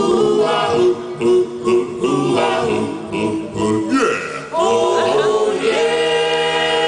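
Doo-wop a cappella group of mixed male and female voices singing the closing bars of a song in close harmony, with no instruments, settling into a long held final chord near the end.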